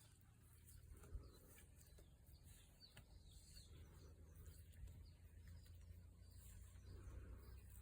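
Faint, slow snoring breaths of a sleeping cow, swelling about every three seconds, with a few faint bird chirps.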